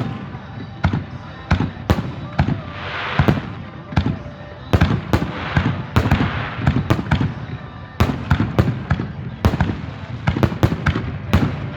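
Fireworks going off: many sharp bangs in quick, irregular succession, with stretches of hissing crackle about three seconds in and again around five to six seconds in.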